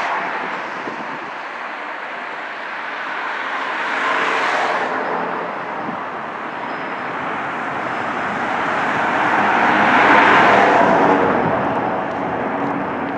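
Double-stack container freight train rolling past, a steady rumble and rattle of its wheels on the rails. Road traffic passes close by on the road beside the track, swelling and fading about four seconds in and again about ten seconds in.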